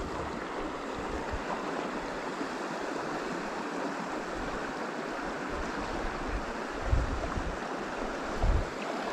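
Steady rush of flowing stream water, with a couple of brief low wind buffets on the microphone near the end.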